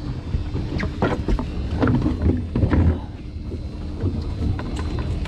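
Wind rumbling on the microphone aboard a drifting boat, with several knocks and clatters as a plastic fish-measuring board and freshly caught halibut are handled and set down on the fibreglass deck.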